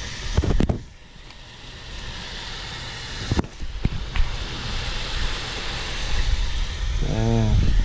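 Shallow water boiling and sizzling in a small saucepan on a hot stovetop around sticks of bubble gum, a steady hiss that grows louder. A couple of knocks near the start and one midway, and a brief hum of a voice near the end.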